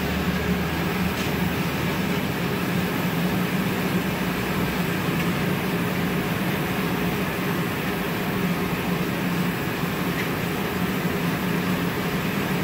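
Steady roar of a glassblowing shop's gas-fired furnace burners and blowers, with a steady low hum. A deeper rumble beneath it drops away about five seconds in.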